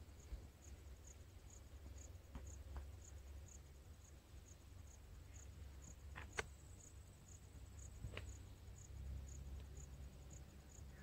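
Quiet pondside ambience: a faint, high insect chirp repeating evenly about three times a second over a low rumble, with a few faint clicks, the sharpest about six seconds in.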